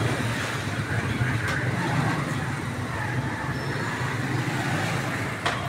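Papri frying in a large karahi of hot oil, a steady sizzle, as they are stirred and lifted with a long metal skimmer that knocks against the pan twice, about a second and a half in and near the end. A steady low traffic rumble runs underneath.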